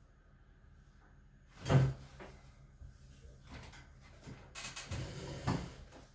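A single sharp knock a little under two seconds in, then about a second of rustling with light knocks near the end: handling and shifting on a padded chiropractic treatment table.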